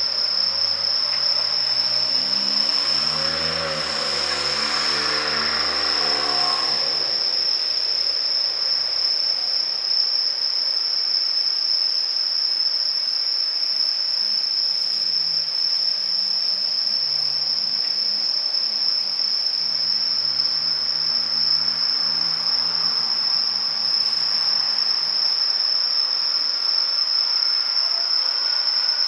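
Crickets chirring in one steady high-pitched tone throughout, the loudest sound. Under it, the East i (E926) Shinkansen inspection train's electric traction motors whine in shifting tones as the train slows: once in the first seven seconds, and again from about fifteen to twenty-five seconds in.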